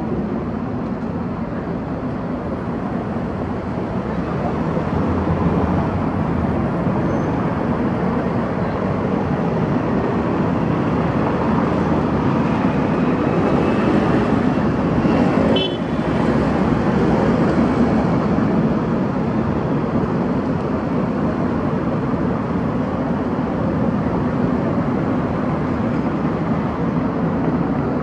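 Continuous city road traffic: cars and a motorbike passing steadily, growing somewhat louder a few seconds in, with a brief higher tone near the middle.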